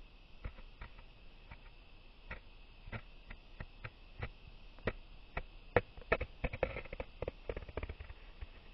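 Small carving knife paring thin shavings off the edge of a green birch spatula, a string of short crisp clicks and scrapes, one with each stroke. The strokes come a few a second and grow busier and louder in the second half.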